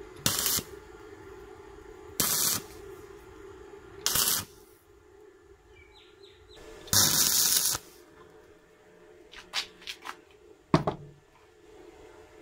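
Stick welder arc striking short tacks: four brief bursts of arc noise about two seconds apart, the last one the longest at about a second, over a steady hum. Near the end come a few light metal clicks and a sharp knock.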